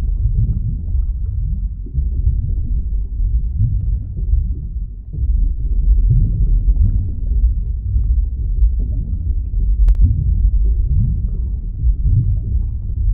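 Underwater ambience sound effect: a continuous deep rumble with slow swelling, gliding low tones and a single faint click near the end.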